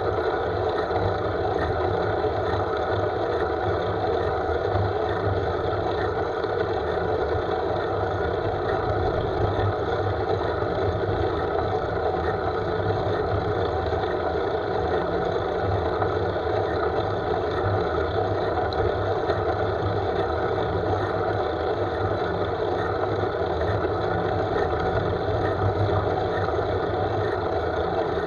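Steady wind rush and tyre noise from a road bike rolling along a paved street, picked up by a handlebar-mounted camera's microphone.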